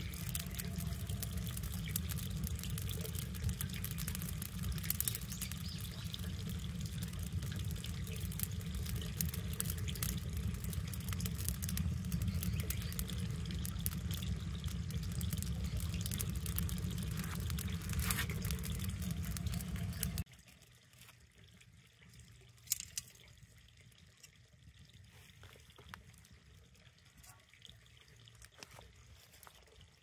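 Wood fire of oak logs in a rusty drum fire pit crackling and popping, with many sharp ticks over a steady low rumble. About two-thirds of the way through the sound drops off suddenly, leaving only faint scattered crackles.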